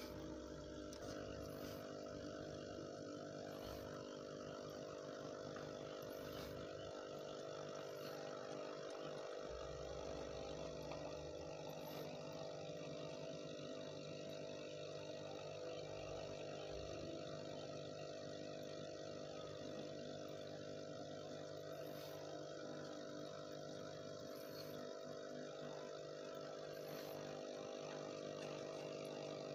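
Aquarium air pump humming steadily, with air bubbling up through the tank water.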